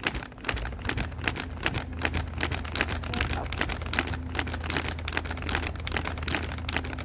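Lamb skewers sizzling over hot charcoal, a dense, irregular patter of small pops and crackles, with a low steady hum underneath from about half a second in.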